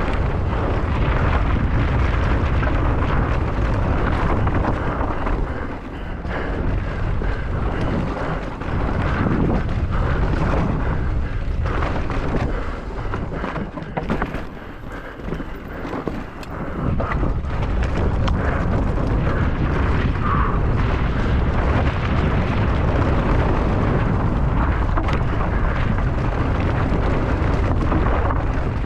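Wind buffeting the microphone, mixed with the rumble of a mountain bike descending fast, with a short dip in the noise about halfway through.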